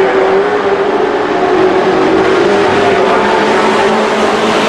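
Several dirt-track race trucks' engines running at racing speed, loud and steady, their overlapping engine notes shifting slightly in pitch as they go through the turn.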